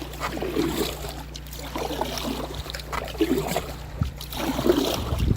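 Canoe paddle strokes in the water, with a splash and trickle every second or so.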